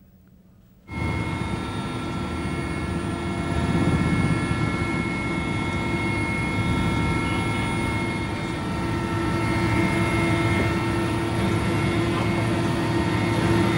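Helicopter cabin noise: the engine and rotors drone steadily, with several steady whining tones over the drone. It starts about a second in, after a brief silence.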